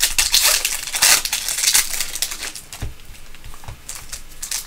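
Foil wrapper of a trading-card pack crinkling as it is handled, loudest in the first two seconds, then fainter rustling and a few light clicks as the cards are handled.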